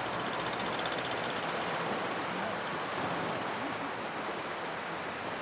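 Small waves washing onto a sandy beach: a steady, even rush of surf.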